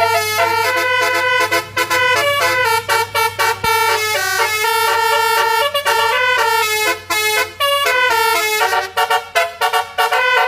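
Telolet basuri musical vehicle horn playing a melody: a run of loud horn notes stepping up and down in pitch, several horn tones sounding together, with short breaks between phrases.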